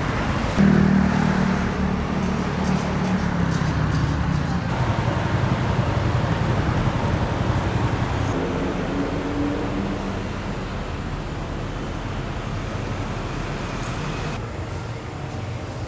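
Road traffic: a motor vehicle's engine running close by, its hum fading away over several seconds, over a steady traffic hiss. The sound turns duller about fourteen seconds in.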